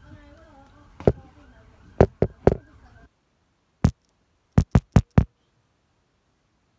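A series of sharp taps or knocks: single ones about a second and two seconds in, a quick pair just after, then five more in quick succession between about four and five seconds. A faint background murmur cuts off suddenly about three seconds in, leaving only the taps.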